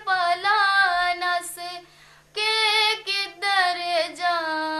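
A woman singing a Punjabi Christian devotional song solo, without accompaniment, holding long, slightly wavering notes, with a short breath break about two seconds in.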